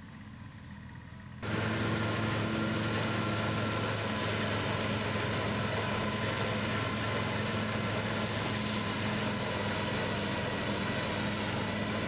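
Tractor engines running steadily as a tractor-powered forage harvester chops green fodder and blows it through its chute into a trailer, with a dense rushing hiss over the engine hum. The sound comes in suddenly and loudly about a second and a half in, and is faint before that.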